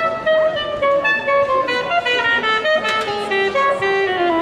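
Traditional jazz band playing live. A single wind instrument carries a melody that moves note by note and then falls to a long held low note near the end.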